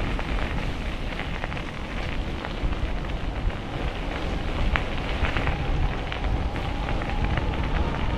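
Bicycle ride heard from a camera on the bike: wind rumbling on the microphone and tyres rolling on the path, with scattered small clicks and rattles.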